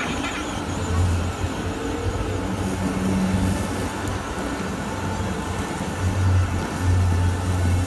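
Tram 2000 trams running past on street track, a steady rumble of city traffic noise with a low hum that comes and goes.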